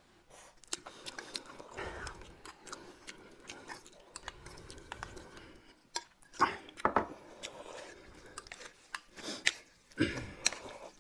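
Close-up eating sounds: chewing and slurping of noodles and spoonfuls of soup, with frequent small clicks of chopsticks and spoons against bowls. Louder slurps come about six to seven seconds in and again near the end.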